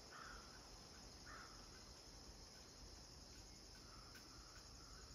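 Near silence with the faint steady chirring of crickets, and a few soft short chirps near the start and again near the end.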